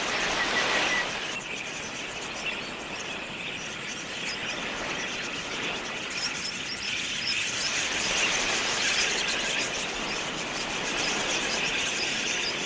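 A flock of budgerigars chattering: many overlapping short, high chirps in a dense, continuous din.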